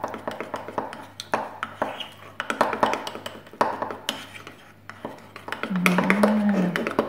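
Metal teaspoon stirring thick chocolate batter in a ceramic mug, with repeated clinks and scrapes against the mug's sides and bottom. A brief hummed voice comes about six seconds in.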